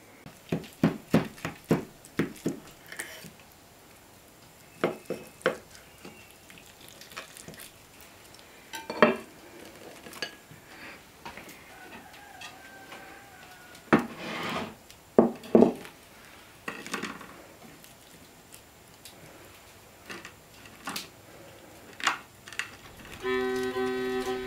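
Tableware being handled on a wooden table: scattered clinks and knocks of plates and utensils, a quick run of them in the first few seconds and a few louder ones in the middle. A fiddle tune begins near the end.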